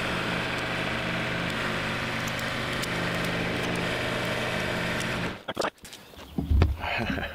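Mahindra compact tractor's engine running steadily at idle, then cutting off suddenly about five seconds in, followed by a few knocks and rattles.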